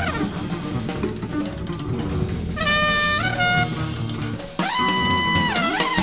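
Improvised jazz trio of trumpet, bass and drum kit. Drums and bass play alone at first. About halfway in, the trumpet enters with a few short notes stepping upward, then holds a long higher note that bends down near the end.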